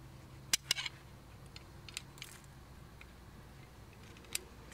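A handful of light metallic clicks and taps as a drum brake shoe and its parking brake lever are handled and set against the backing plate, the sharpest about half a second in, over a faint low hum.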